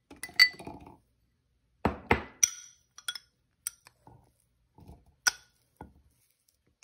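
A steel spoon and a glass bowl clinking and knocking against a stainless steel mixer-grinder jar as green chillies and grated coconut are spooned in. About ten separate, uneven clinks come with short gaps between them.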